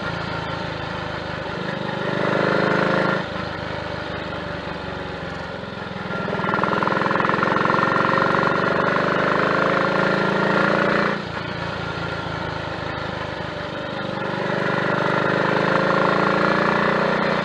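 Triumph Tiger Cub's small single-cylinder four-stroke engine under way on the road. It pulls up in pitch, drops back abruptly about three seconds in and again near eleven seconds as the throttle eases, then builds again. It runs without misfiring on its new carburettor slide, needle and jets.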